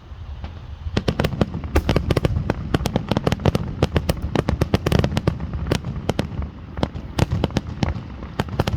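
Fireworks going off in a rapid, irregular barrage of sharp cracks and pops, several a second, over a low rumble. The barrage starts about a second in.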